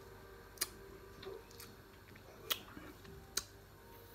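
Three sharp, faint clicks, irregularly spaced about a second apart, with a couple of fainter ticks between them.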